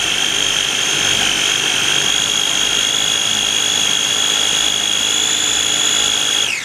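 KitchenAid mini food processor motor running steadily with a high whine, churning heavy cream that has separated into butter and buttermilk. Near the end it is switched off and the whine falls quickly to a stop.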